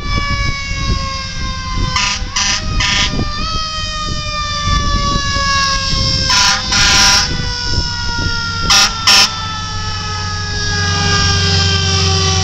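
Fire engine's siren wailing, its pitch sliding slowly down and stepping back up a few times, over the truck's engine rumble. Short air-horn blasts cut in: three quick ones a couple of seconds in, a longer one around halfway, and two more a few seconds after.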